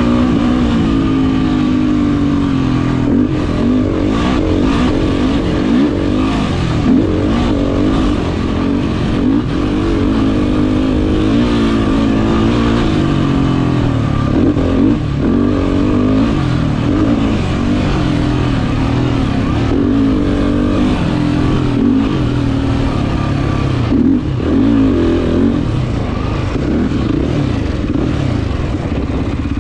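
Sport quad (ATV) engine under race load, its revs climbing and dropping again and again as the rider accelerates, shifts and backs off over rough desert terrain.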